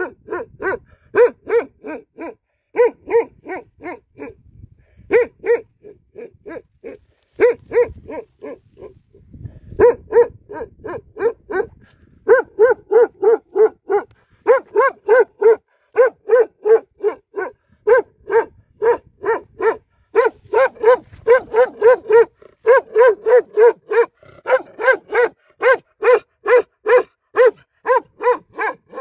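A large long-haired dog barking over and over in a steady string of short barks, about two to three a second, with brief pauses about four seconds in and again around eight to ten seconds in.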